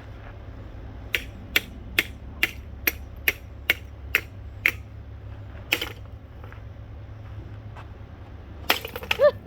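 A run of sharp, evenly spaced taps or clicks on something hard, about two a second, nine in a row, then a single one and a louder clatter with a brief ring near the end, over a steady low hum.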